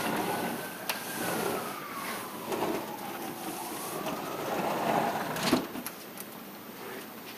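A vehicle going by, a tone in its sound sliding down in pitch over a few seconds and then rising again, with a few sharp knocks, the loudest about five and a half seconds in.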